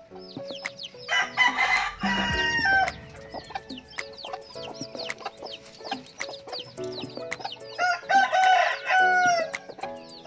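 Newly hatched chicks peeping in a steady run of short, high, downward-sliding cheeps. A rooster crows twice, about a second in and again about eight seconds in; the crows are the loudest sounds. Soft background music plays underneath.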